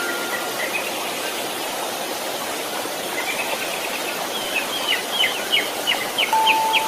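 Steady white noise. A chime note dies away at the start, a run of quick bird chirps comes in about halfway through, and a new chime note sounds near the end.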